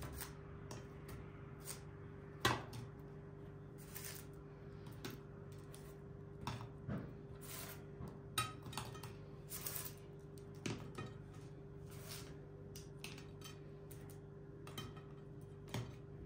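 Crisp, flaky baked börek rolls being picked off a paper-lined baking tray and set down on a serving plate: scattered light taps, clinks and rustles, the loudest about two and a half seconds in. A steady low hum runs underneath.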